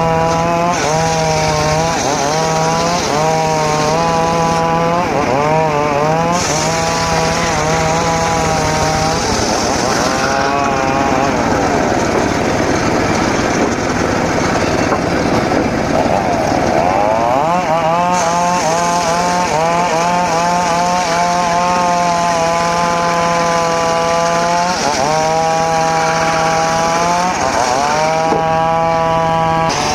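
Homemade circular saw ripping mahogany: the spinning blade and its motor run loud and continuous, the pitch sagging and recovering again and again as the blade takes load in the cut, with a rougher, less even stretch in the middle.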